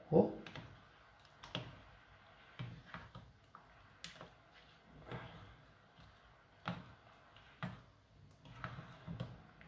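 A black plastic spoon stirring a thick chili sauce in a steel saucepan, knocking and scraping against the pot about once a second. The loudest knock comes right at the start.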